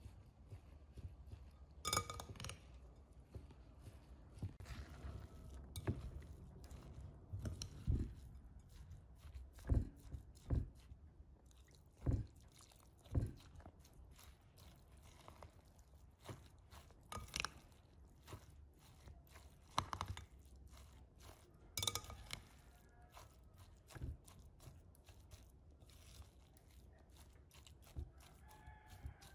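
A metal spoon stirring a moist minced-meat, herb and rice dolma filling in a glass bowl: wet mixing sounds with irregular clinks, knocks and scrapes of the spoon against the glass, a few of them louder.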